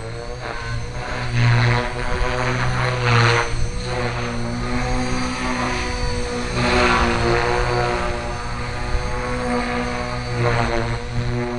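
Align T-Rex 450 Pro electric RC helicopter flying, its carbon-fibre main rotor blades and motor giving a steady pitched hum. Louder rushes of blade noise swell four times.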